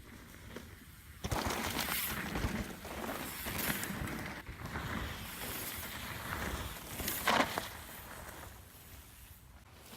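Faint outdoor background noise with light, irregular rustling and a brief louder noise about seven seconds in.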